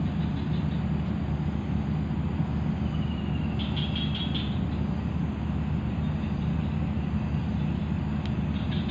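Steady low mechanical drone, like a distant engine running, with a short high chirping call about four seconds in and another near the end.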